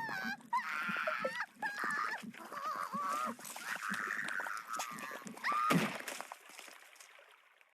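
High-pitched, squeaky cartoon character voices yelping and shrieking in wavering cries, with a sharp hit about six seconds in, then fading away.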